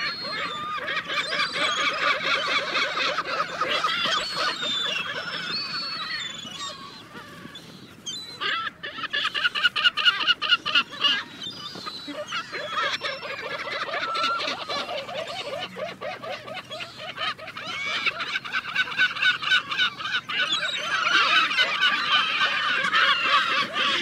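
A flock of birds calling together, many short calls overlapping in a dense, continuous chorus that thins briefly near the middle and then picks up again with fast repeated notes.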